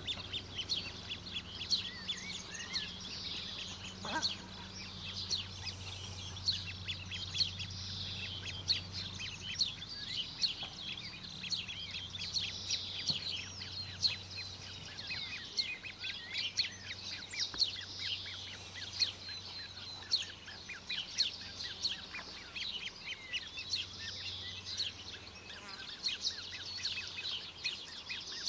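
Rapid, continuous high-pitched peeping of Australasian crested grebe chicks begging to be fed, many short calls a second, over a low steady hum.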